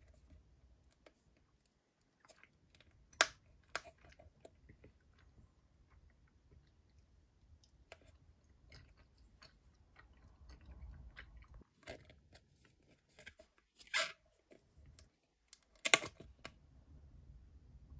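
Thin clear plastic blister tray crackling and clicking as fingers flex it and press a gummy out of its cavity. The crackles are sharp and scattered, and the loudest come about two seconds apart near the end.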